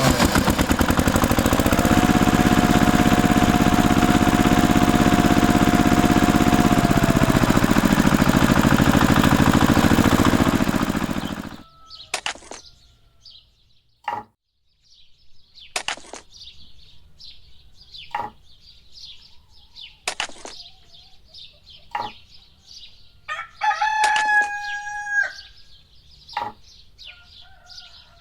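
A small engine, the DIY mini tractor's, runs loudly and then stops about eleven seconds in. After it, sharp taps come about every two seconds, small birds chirp, and a rooster crows once, about twenty-four seconds in.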